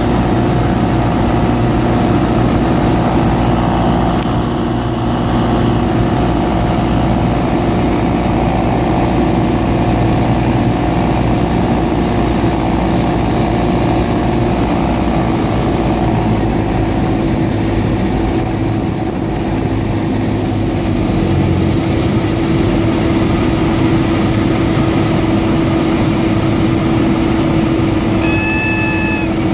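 Cabin noise of a single-engine light aircraft on final approach and landing: steady engine and propeller drone with airflow noise. Near the end, as it flares over the runway, a high steady warning tone starts, typical of the stall warning horn sounding in the flare.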